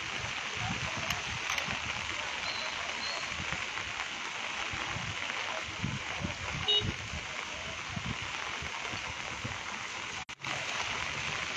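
Steady rain falling on a wet street and parked cars, a constant hiss, cutting out for a moment near the end.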